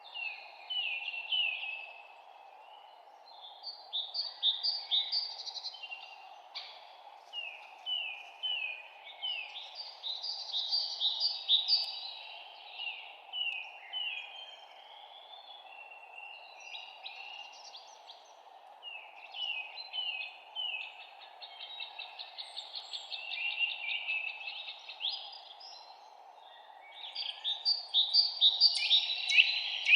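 Songbirds singing in a spring forest: repeated phrases of quick, falling chirps and trills, one after another with short gaps, growing loudest near the end. A steady low hiss runs underneath.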